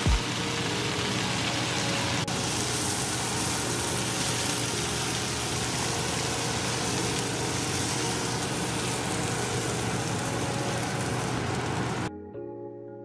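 Vegetables sizzling in a hot nonstick frying pan, a steady frying hiss that cuts off sharply near the end, where background music comes in.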